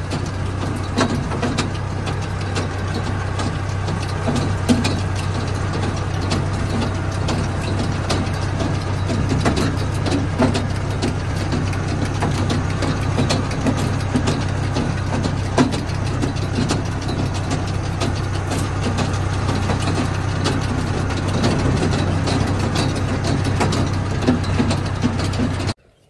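Tractor engine running steadily while a feed-out wagon's conveyor throws silage out the side, with frequent short clattering knocks over the drone. It cuts off just before the end.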